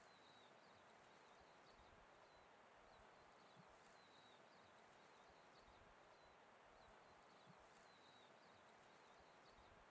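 Near silence: faint outdoor ambience with soft high chirps repeating about twice a second.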